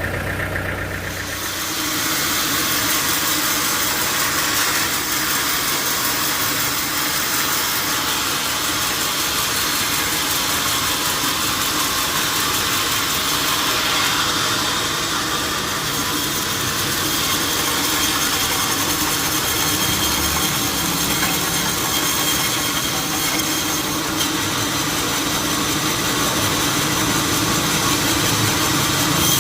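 Sawmill saw running on its engine, with a steady, dense hissing noise setting in about a second and a half in as the blade cuts through a teak log.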